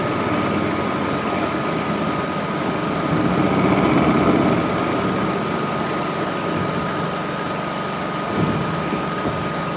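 Engines of tracked assault guns running on the move, a steady rumble that swells about three to four seconds in. It sits on an old optical film soundtrack, with hiss and a constant high-pitched whine.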